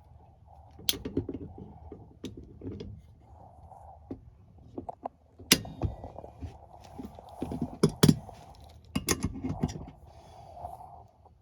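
Irregular clinks, knocks and thunks of tools and metal gas-pipe parts being handled, the loudest about halfway through and again about two-thirds of the way in.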